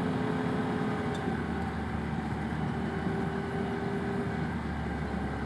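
Arctic Cat Wildcat Trail side-by-side's engine running steadily while riding, a constant drone with only small shifts in pitch over tyre and trail noise.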